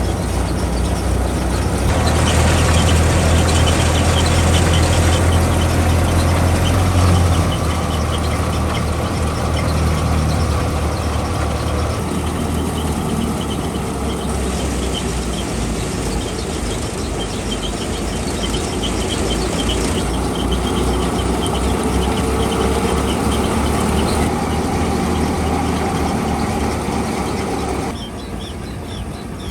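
Al-Ghazi diesel tractor engine running hard while driving a wheat thresher: a steady low drone with a fast, even rattle from the threshing machinery on top. The sound shifts abruptly every few seconds.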